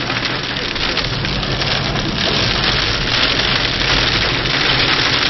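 Very heavy rain mixed with hailstones drumming steadily on a car's roof and windscreen, heard from inside the cabin, over the low hum of the car.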